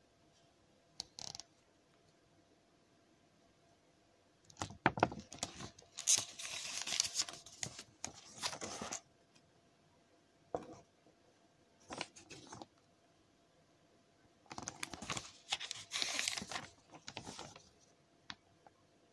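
Paper pages of a LEGO instruction booklet being turned and handled. They rustle in two longer spells a few seconds each, with a few short ticks between.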